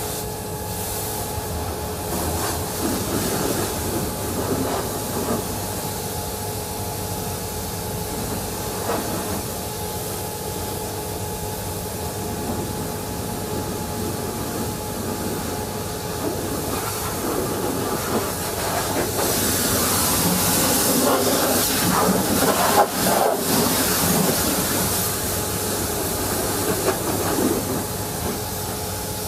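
Hot-water pressure washer spraying, a steady hiss of the jet with a constant hum underneath. The spray grows louder and harsher for several seconds from about two-thirds in.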